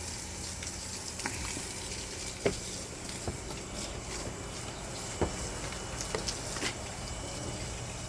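Water from a garden hose spraying and pattering onto plants and soil, a steady hiss with a few small knocks.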